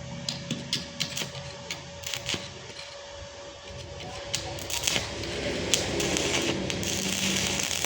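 Electric arc welding with a freshly repaired inverter welder: irregular sharp clicks and snaps as the arc is struck. About seven seconds in, a steady crackling hiss sets in as the arc holds.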